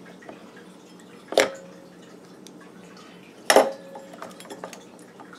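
Two sharp metallic clinks about two seconds apart, each with a brief ring, as steel clutch parts of a Suzuki FZ50 moped engine are handled and fitted onto their shaft; a few lighter ticks follow the second clink.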